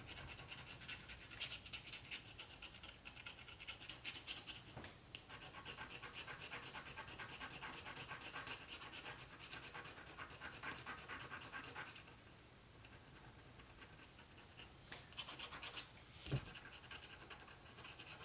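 A small hand scraper tool scratching at watercolour paper in quick, rapid strokes, picking dried masking fluid off the painting. The scratching eases off about two-thirds of the way through, starts again, and a single soft thump comes near the end.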